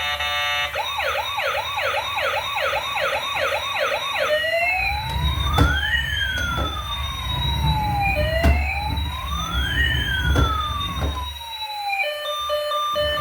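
Emergency-vehicle siren: a fast yelping warble for the first four seconds or so, then a slow wail rising and falling twice, over a low rumble. Near the end it gives way to a repeating pattern of steady electronic beeps.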